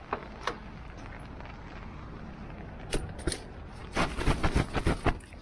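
Steady rain hiss with a few sharp clicks, then a quick flurry of loud knocks and rattles about four seconds in.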